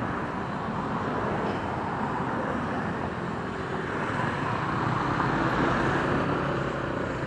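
Steady running noise of a motorcycle moving through city traffic, heard from the bike itself: engine, tyre and wind noise blended together, rising slightly about five seconds in.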